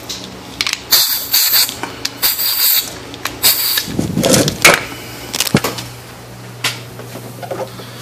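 Compressed-air hose being connected to a paint-can smoke machine: clicks and knocks from the fittings, with two short bursts of air hiss in the first three seconds, then more handling knocks, over a steady low hum.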